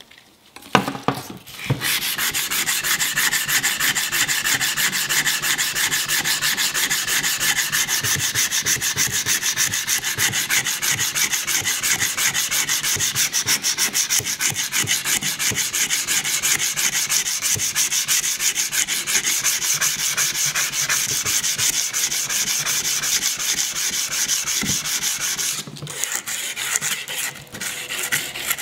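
Sandpaper rubbed in rapid back-and-forth strokes along the steel blade of a Sugimoto Japanese chef's knife, sanding off the blade's patina. A few knocks about a second in, then steady scrubbing with a short break near the end.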